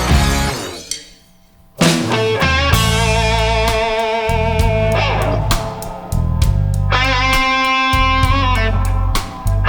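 Rock band playing: electric guitar with drums and bass, starting after a short break about two seconds in.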